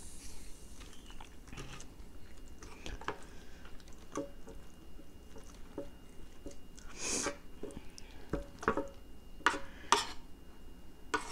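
Close-miked chewing and wet mouth sounds of someone eating an omelette in green chili sauce, with a metal spoon scraping and clinking on a ceramic plate. A few sharper clicks stand out in the second half.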